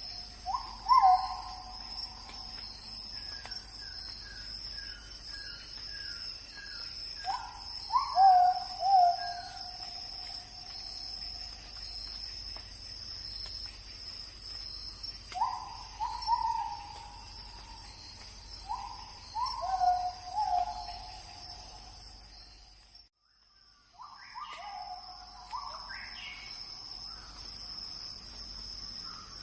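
Nature ambience: a steady high insect drone under clusters of short calls that sweep sharply up at their start and come every few seconds, with a brief dropout about 23 seconds in.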